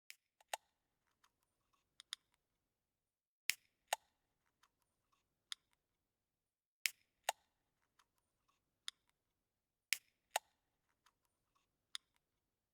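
A series of sharp clicks and taps with silence between them, the loudest coming in pairs about half a second apart, three times.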